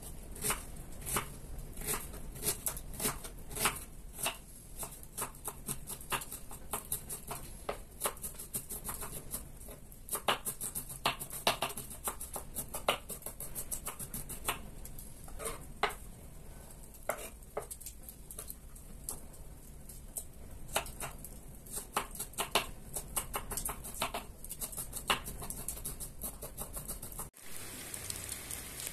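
Knife chopping food on a cutting board: sharp, irregular knocks several times a second. Near the end it cuts suddenly to the steady hiss of rain.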